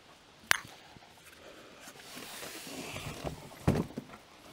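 Cardboard box and packaging rustling and knocking as a folding e-bike is lifted out of its shipping box: a sharp click about half a second in, a soft rustle building after two seconds, and a couple of knocks near the end.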